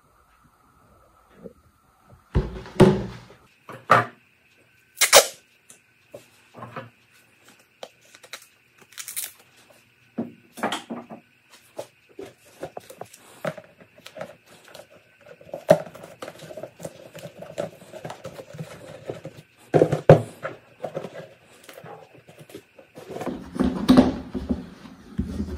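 Plastic bucket being handled and turned over: irregular knocks, taps and light scrapes of hard plastic, with a louder cluster of knocks near the end.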